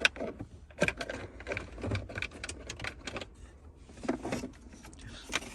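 Irregular plastic clicks and taps as a charging cable is handled and fed behind the Mini Cooper R56's interior dashboard trim.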